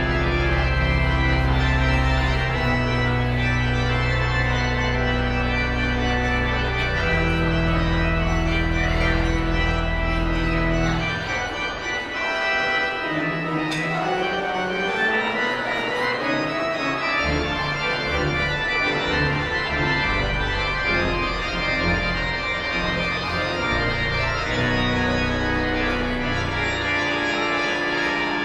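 Organ playing slow, held chords over deep sustained bass notes. About eleven seconds in the deep bass drops out and a lighter line of moving notes carries on.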